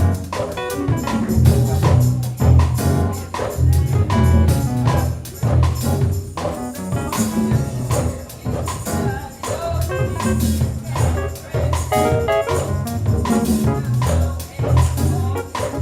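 A gospel praise-and-worship band plays with a strong, heavy bass line and steady percussion.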